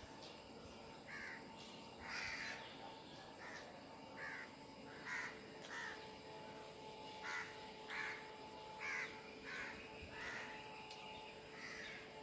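A bird calling faintly in the background: about a dozen short harsh calls at irregular intervals, over a steady faint hum.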